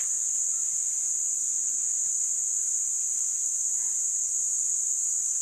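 A steady, high-pitched drone of insects in the dry forest, unchanging throughout.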